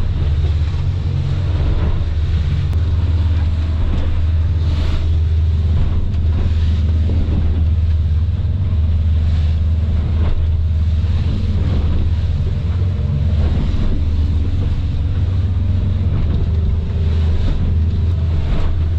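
A motorboat's engine drones steadily under way through big swells, with wind buffeting the microphone and short bursts of rushing water and spray every few seconds.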